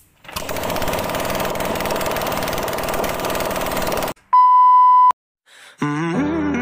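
A motorcycle engine running steadily, cutting off about four seconds in. It is followed by a loud, steady electronic beep lasting under a second, and music with a melody starts near the end.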